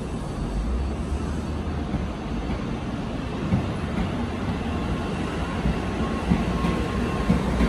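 N700-series Shinkansen train moving along the platform, a steady rumble of wheels and running gear that grows louder, with sharper wheel clacks in the last few seconds.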